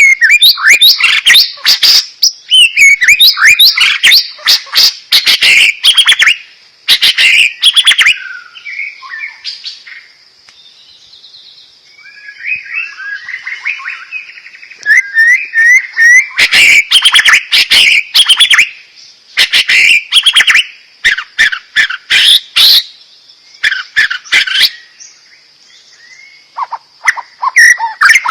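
White-rumped shama (Bornean murai batu) in full song: loud, rapid bursts of varied chirps, trills and sharp clicking notes full of mimicked phrases, with a softer, quieter passage about a third of the way through before the loud bursts resume. A faint steady high whine runs underneath.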